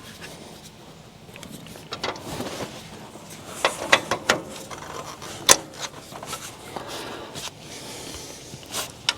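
Tractor hydraulic hose fitting being worked and connected into the Power Beyond port: scattered metal clicks and knocks, the sharpest about five and a half seconds in.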